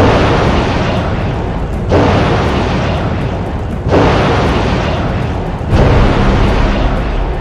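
Loud blasts, four in all, one starting suddenly about every two seconds, each fading slowly before the next.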